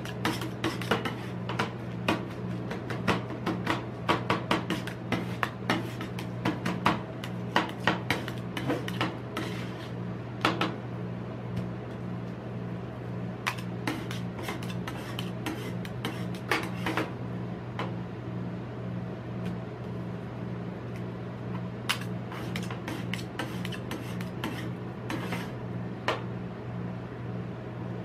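Metal spatulas chopping and scraping ice cream mix on a steel cold plate: rapid clicking knocks for the first ten seconds or so, then slower strokes with occasional knocks as the mix is spread flat. A steady low hum runs underneath.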